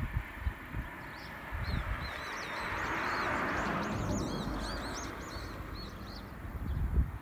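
Wind buffeting the microphone in low gusty thumps, with small birds twittering in a quick run of short high chirps. A broad rushing swell rises and fades through the middle.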